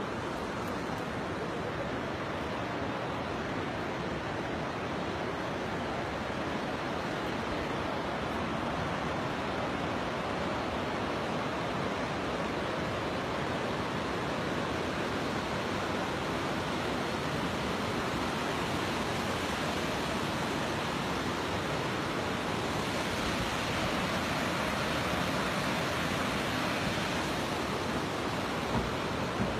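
A steady rushing noise, getting a little louder after the middle, with a few light knocks near the end.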